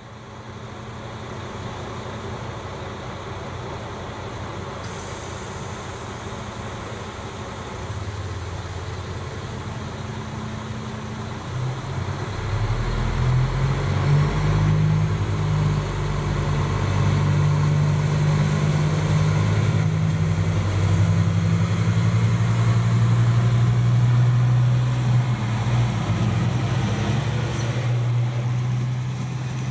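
Diesel engines of an erixx diesel multiple unit running, first at a steady hum, then stepping up louder and deeper about ten seconds in as the railcar pulls away from the platform and passes close by.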